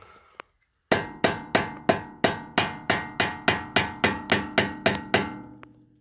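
Hammer tapping steadily on a flathead screwdriver wedged into the BMW X5's front steering knuckle, about fifteen light metallic strikes at roughly three or four a second, each ringing briefly. The blows are spreading the gap to free the upper control arm from the knuckle.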